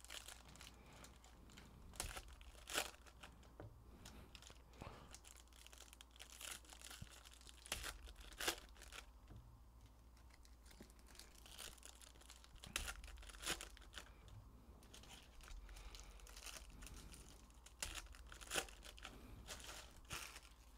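Foil wrappers of Bowman Draft jumbo trading-card packs being torn open and crinkled: quiet rustling with sharp crackles every few seconds.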